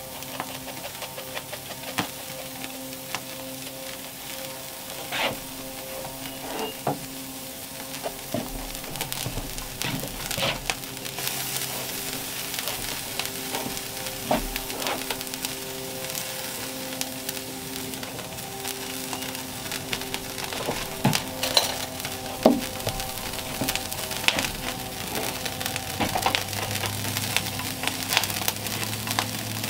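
Hamburger patties sizzling on a wood-fired grill grate, with frequent small crackles and sharp clicks. Soft background music runs underneath.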